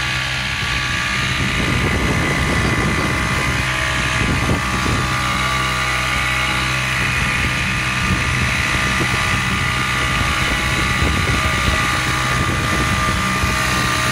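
Outboard motor of a small inflatable boat running steadily under way, with wind noise over the microphone.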